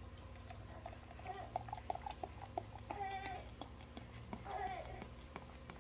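Beer glugging out of a glass bottle into a plastic cup, a run of small splashy clicks. Faint wavering cries, meow-like, come through about a second in and again a little before the end.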